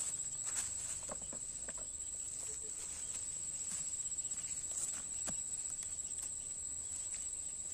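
Insects chirring in a steady high-pitched drone, with scattered faint crackles and clicks of dry sugarcane leaves and cut cane pieces underfoot and in hand.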